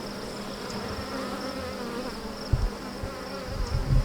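Honeybees buzzing over an opened hive, a steady hum with wavering pitch. A few low thumps come in about two and a half seconds in and again near the end.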